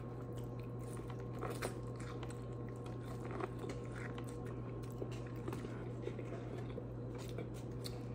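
Close-up biting and chewing of cheese-coated corn on the cob: many small, irregular crunches and clicks as teeth strip the kernels, over a faint steady hum.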